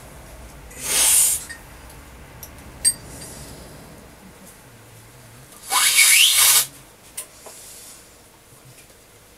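Two loud slurps of coffee sucked from a cupping spoon, one about a second in and a longer one about six seconds in, with a light clink between them.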